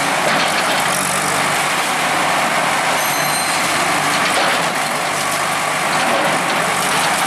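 Bulldozer at work, its diesel engine running with a continuous loud, dense din.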